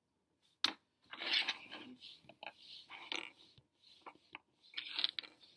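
Food items and their containers being handled and set back down on a table: a sharp click about half a second in, then rustling and light knocks.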